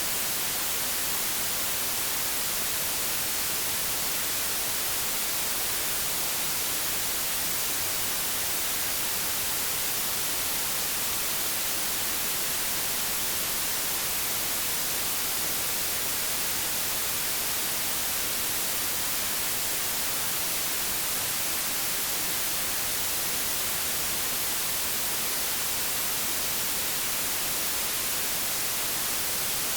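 Synthetic white noise: a steady, unchanging hiss with no breaks or events.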